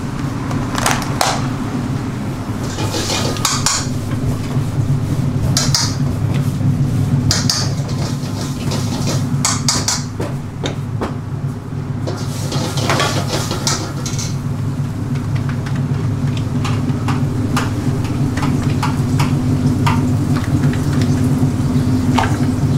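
Commercial kitchen sounds: a steady low hum under repeated clatter of dishes, pots and utensils, with plastic takeaway-container lids being pressed on near the start.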